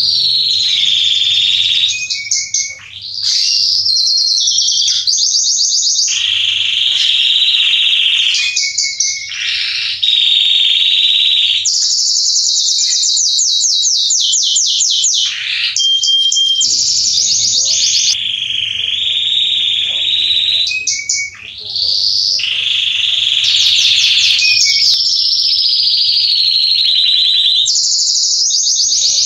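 Male Belgian canary singing a long, loud, high song of rapid trills and held notes, with brief breaks about 3 and 21 seconds in.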